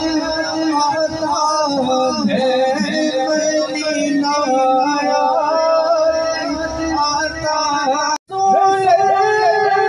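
A man singing a naat, a devotional song in praise of the Prophet, in long held and bending notes. The sound cuts out for an instant about eight seconds in.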